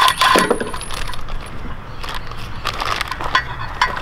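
Cordless drill/driver whirring in two short bursts at the start, then small metal clinks, sharp clicks and crinkling plastic wrap as the welding-table legs are handled.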